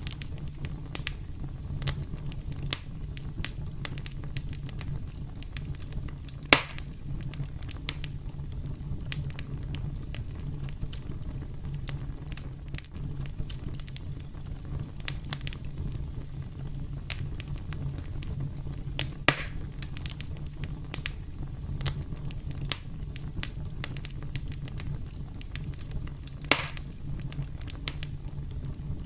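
Campfire crackling: wood burning with a steady low rumble and frequent small crackles. Three louder pops come about six seconds in, about nineteen seconds in and near the end.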